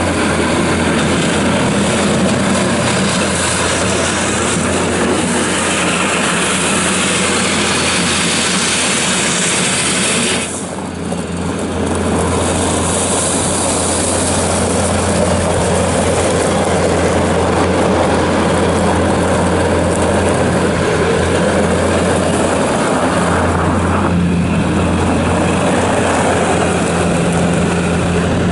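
Bobcat S590 skid steer loader's diesel engine running steadily under load, with a constant low hum and a dense mechanical din. It eases briefly about ten seconds in, then picks up again.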